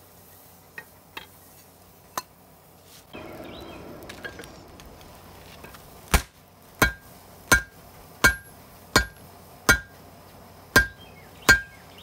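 Hand hammer striking a white-hot layered billet of meteorite iron and high-carbon steel on a steel anvil, about one blow every 0.7 seconds with a short ring on each: forge-welding the layers at welding heat. Before the hammering starts, about halfway through, there are a few light clinks and a few seconds of rushing noise.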